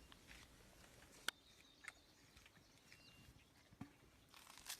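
Near silence: faint outdoor ambience with a few soft ticks, one sharper click a little over a second in, and a faint short bird chirp.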